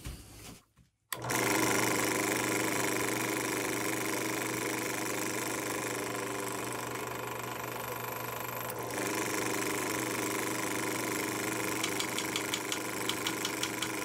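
Benchtop drill press motor switched on about a second in and running steadily while the bit is run into the flint-tube bore of a Zippo lighter insert to clear out hardened debris. A run of quick ticks comes near the end.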